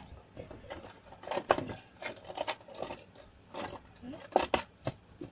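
Irregular clicks, knocks and rustles of objects being handled close to the phone's microphone, with a few short sounds of her voice.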